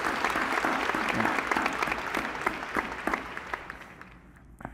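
Audience applause: a dense patter of many hands clapping, dying away over about four seconds.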